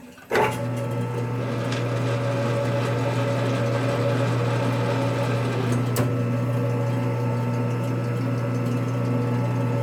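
Metal lathe switched on about a third of a second in, then running steadily under power for a thread-cutting pass, a steady mechanical drone from its motor and gearing. A sharp click sounds about six seconds in.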